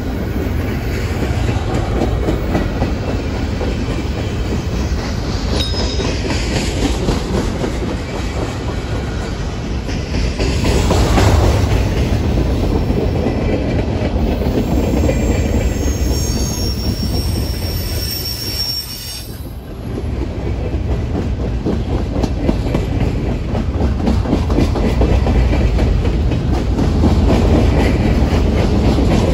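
Freight train's open-top hopper cars rolling past close by: a steady rumble and clatter of wheels on the rails, with a thin high wheel squeal now and then, most clearly a little past halfway.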